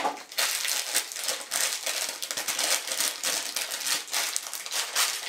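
Black foil blind bag of a Funko Mystery Mini crinkling as it is worked open by hand: a dense, continuous stream of fine crackles that starts suddenly.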